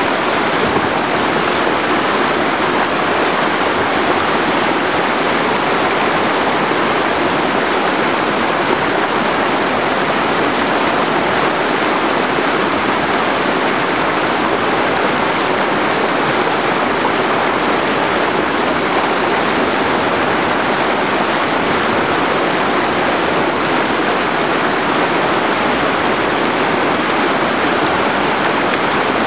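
Whitewater rapid rushing loudly and steadily, an even churn of broken water with no let-up.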